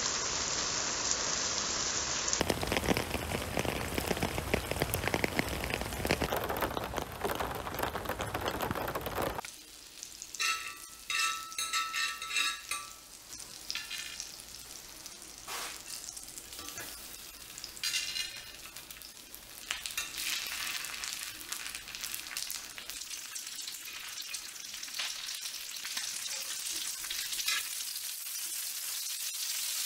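A loud, steady hiss for about the first nine seconds, then a quieter crackling sizzle of butter melting in a griddle pan on a tabletop burner, with scattered pops. By the end, whole shrimp and asparagus are frying on the griddle.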